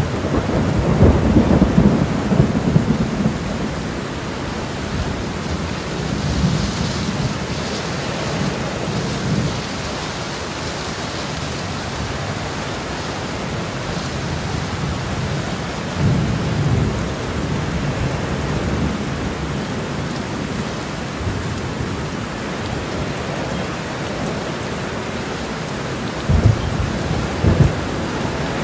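Steady heavy rain with repeated low rolls of thunder, the longest at the start, and two short sharp thunder cracks near the end.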